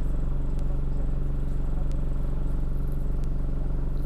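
Alexander Dennis double-decker bus engine running with a steady low drone, heard from inside the passenger cabin. A faint tick repeats about every second and a half.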